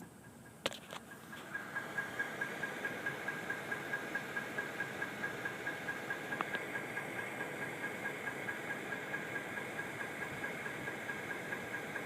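2013 Toyota Tundra engine running with a steady, evenly spaced knock of about four beats a second, setting in after a click early on. The owner takes it for an engine knock, which the dealer says is normal.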